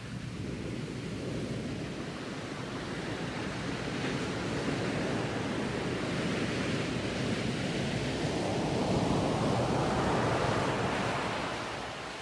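Sea surf: a wash of breaking waves that swells over several seconds, is loudest about ten seconds in, and ebbs away near the end.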